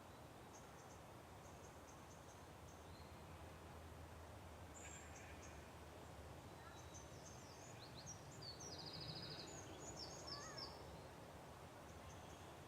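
Faint early-morning birdsong over a steady low background hiss: scattered high chirps, busier a little past the middle, with a short rapid trill.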